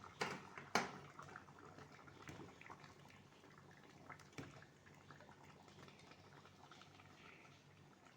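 Pot of bulgur kubba stew bubbling softly on the stove, the sound that says the stew is cooked. Two sharp clicks come in the first second, and a fainter knock about four seconds in.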